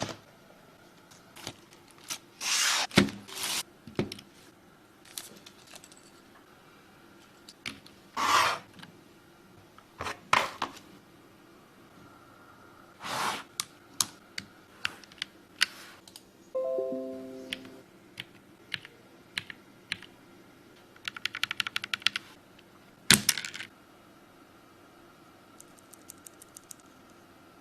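Unboxing and handling of a Keychron K3 Pro low-profile mechanical keyboard: scattered clicks, knocks and short rustles of the box and packaging, then a quick burst of key clicks from typing on it about three quarters of the way through. A short falling series of tones sounds about midway.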